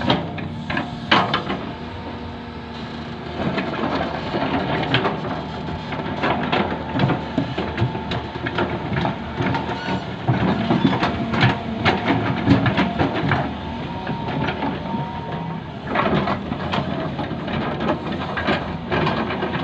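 Hydraulic excavator working in loose fill soil: the engine runs steadily under the clatter of the bucket and tracks, with frequent knocks and crunching scrapes as soil is dug and pushed level.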